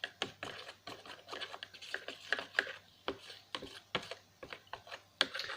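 Irregular light clicks and taps, several a second, over a faint steady low hum.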